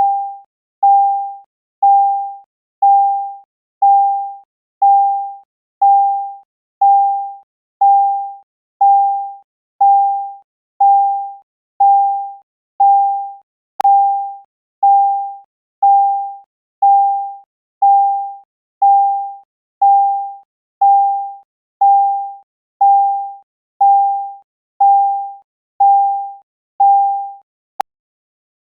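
Synthesized EST Genesis fire-alarm chime sounding in its continuous pattern: a single mid-pitched chime tone struck about once a second, evenly spaced, each strike fading quickly. It cuts off with a click near the end.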